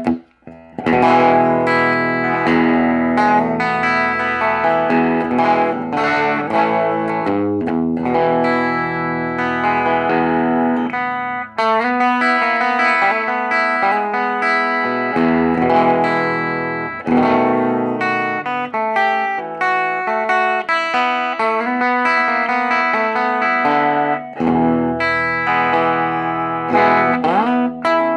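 1957 Fender Telecaster electric guitar played through a Silvertone amp: a flowing run of picked single notes and chords, with notes bent upward near the end.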